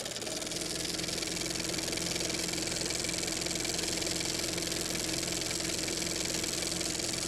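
Small minibike engine idling steadily at a constant pitch.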